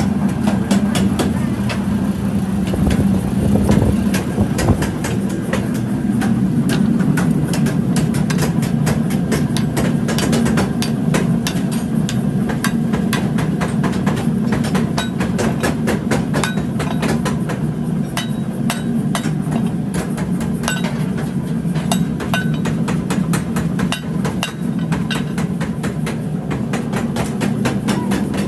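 Mechanical power hammer running, its motor humming steadily under a rapid, unbroken stream of blows on a red-hot steel pickaxe head.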